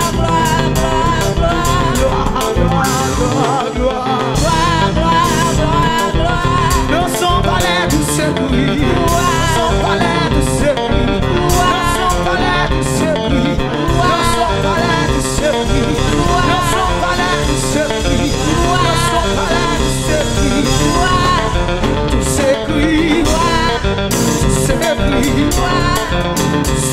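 Live gospel praise band playing: drum kit with cymbals, electric bass guitar and keyboard, with a voice singing over the band.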